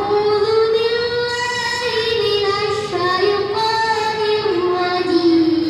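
A child's voice singing a slow melody in long held notes, stepping gradually lower in pitch toward the end.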